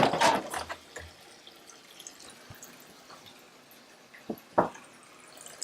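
Water splashing and dripping as boiled eggs are handled in a bowl of cold water: a cluster of splashes in the first second, then quiet, then two short sharp taps near the end.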